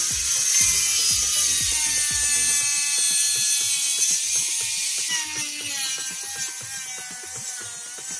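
Total angle grinder running with its cutting disc in a wooden board: a high motor whine over a hissing cut, its pitch sagging slightly under load, growing a little quieter toward the end.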